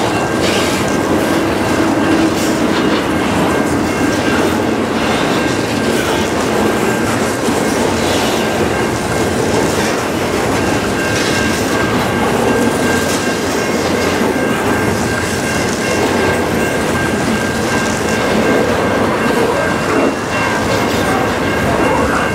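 Double-stack intermodal container cars of a freight train rolling past close by: a loud, steady rumble and clatter of steel wheels on the rails, with a faint steady squeal of wheels above it.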